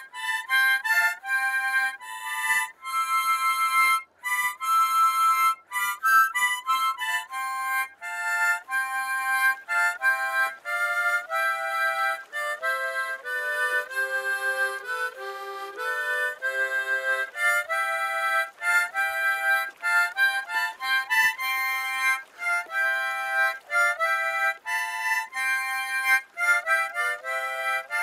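Harmonica played as a continuous melody of short notes, often sounding two or three notes together as chords, with the tune dipping lower about halfway through.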